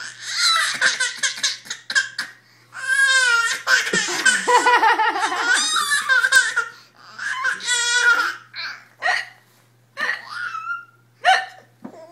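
A young child laughing hard in repeated fits, tipped off by someone's hiccups, breaking into a few short separate laughs near the end.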